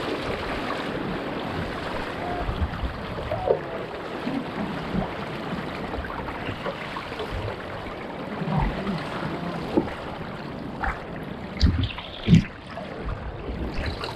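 Steady rush of surf and water around a tandem kayak being paddled out through breaking waves, with wind buffeting the microphone. A few sharp thumps near the end.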